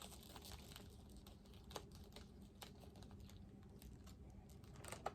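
Faint scattered clicks and light crinkles of small nail-strip sample packets being handled, with a few sharper taps.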